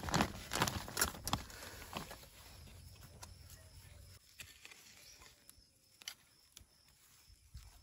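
Soil being pushed by hand and scraped with a small hand spade into a planting hole: crumbling and rustling with sharp clicks of clods, loudest in the first two seconds. It then fades to faint scattered scrapes and ticks, with a few low thuds near the end.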